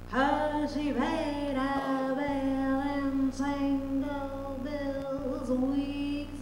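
A woman's solo singing voice holding long, slightly wavering notes into a stage microphone, with short breaks about two seconds in and near five seconds in. A steady low electrical hum runs underneath.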